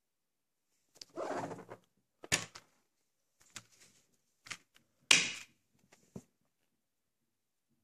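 Handling of a steelbook Blu-ray case: a brief rustle, then a series of sharp clicks and knocks, the loudest about five seconds in.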